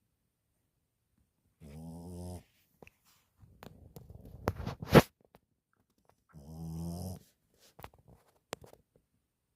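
A sleeping dog snoring: two snores, each a little under a second long, about five seconds apart. Between them come scattered clicks and rustling, and a sharp knock about five seconds in, the loudest sound.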